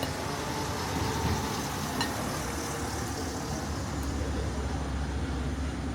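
Outdoor town street ambience: a steady wash of background noise, with one sharp click about two seconds in. A low rumble sets in about four seconds in.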